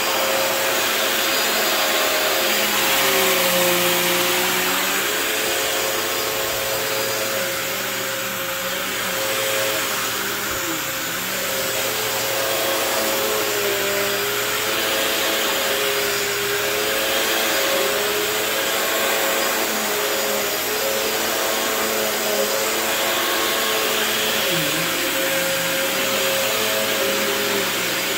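Phantom Twister bagless vacuum cleaner running steadily, a loud motor whir with a steady high tone and lower tones that waver up and down in pitch.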